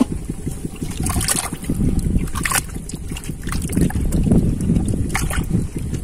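A hand sloshing and groping through shallow muddy water in a mud hole, with a few short splashes, over a steady low rumble.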